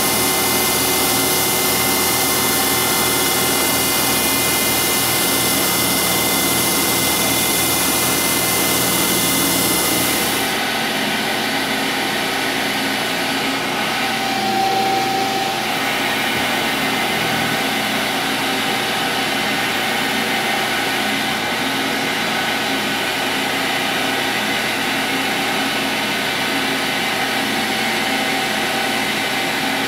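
Metal lathe running steadily, its spindle drive giving a hum with a whine over it. About ten seconds in the sound changes abruptly: the deep hum and the high hiss drop away, and the lathe runs on with a different set of tones.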